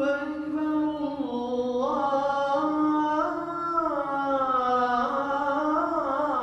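A single man's voice chanting a slow, melodic Islamic prayer recitation in long held notes that glide gently up and down.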